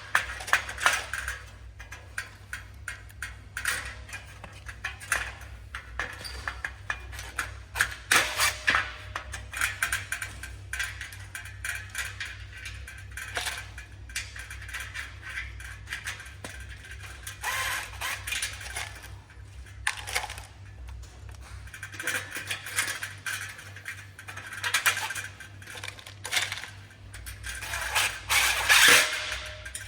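Scattered light metallic clinks and clatter of metal frame parts and fasteners being handled, over steady background music.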